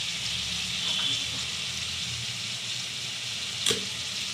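Chicken pieces frying in oil in a steel pan, topped with curd and salt: a steady sizzling hiss, with one sharp click about three and a half seconds in.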